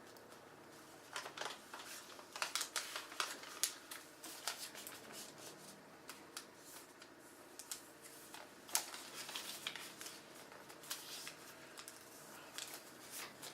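A sheet of paper being folded and creased by hand in origami folding: irregular crisp rustles and crackles, some coming in quick clusters.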